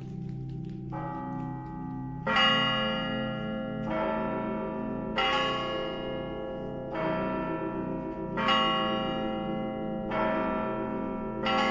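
Russian Orthodox church bells rung by hand: a quick repeating pattern on the smaller bells under heavier bell strikes roughly every one and a half seconds, each stroke ringing on as it fades. A new piece of ringing begins about a second in.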